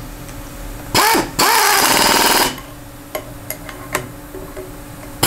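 Pistol-grip pneumatic wrench running in two bursts about a second in, with a hiss of exhaust air, driving a workholding fastener down into a modular fixture plate. A few light metal clicks follow. The tool starts again at the very end.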